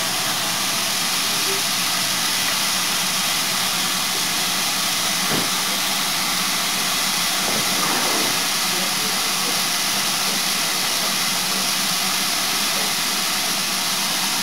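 Steady hiss of steam escaping from the standing steam train hauled by GWR Modified Hall 4-6-0 No. 7903 Foremarke Hall.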